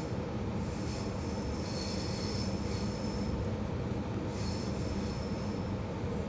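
Moving H set double-deck electric train heard from inside the carriage: a steady rumble of the wheels on the track, with a high wheel squeal twice, from about half a second to about three seconds in and again from about four to nearly six seconds in.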